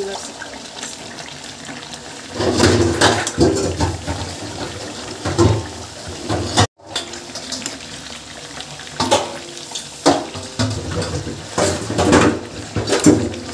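Chicken curry sizzling in a metal kadai while a steel ladle stirs it, scraping and knocking against the pan in several louder spells. The sound cuts out for a moment about halfway.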